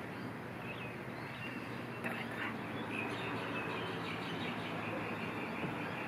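Birds calling: short, repeated chirps and wavering calls over steady outdoor background noise.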